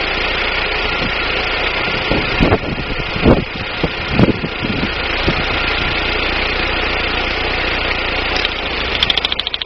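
Daewoo Nubira's 2.0 L DOHC four-cylinder engine idling, with a few sharp irregular thumps in the first half. A fast, even ticking starts near the end. The owner suspects a misfire from weak spark at the DIS ignition coil.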